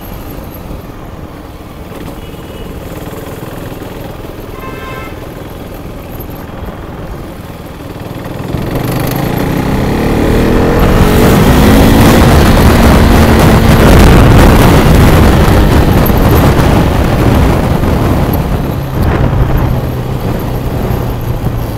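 Motorcycle engine and rushing wind heard from the rider's seat: steady riding at first, then about eight seconds in the engine revs up with a rising pitch as the bike accelerates, growing much louder with heavy wind noise, and easing off near the end.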